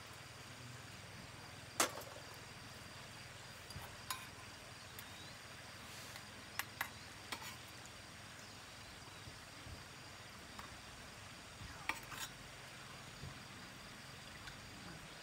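Scattered light clinks and taps of a metal spoon against small stainless steel cups and moka pot parts, over a faint steady hiss. The sharpest clink comes about two seconds in, with a quick pair near seven seconds and another pair near twelve.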